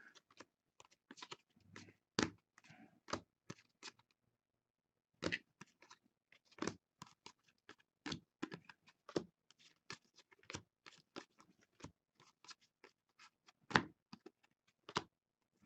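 Baseball trading cards being sorted by hand: scattered light clicks, slaps and short rustles as cards are dealt off a stack and dropped onto piles on a table.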